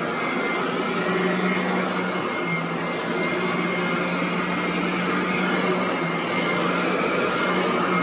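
Royal commercial upright vacuum running on carpet as it is pushed back and forth: a steady motor hum and rush of air, the hum dipping slightly in pitch a couple of times as the nozzle is worked over the pile.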